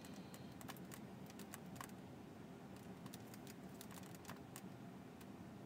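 Faint, irregular clicking of a computer keyboard and mouse during on-screen editing, over a low steady hum.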